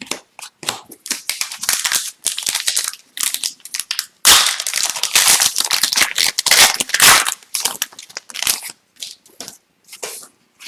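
Plastic-foil wrapper of an Upper Deck hockey card pack crinkling and tearing open, with trading cards clicking and sliding against each other as they are handled. The loudest crinkling comes in the middle.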